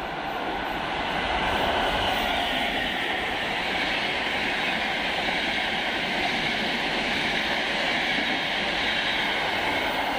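Intercity train with E414 electric locomotives passing close by: a steady rolling noise of wheels on rails that builds over the first two seconds and then holds.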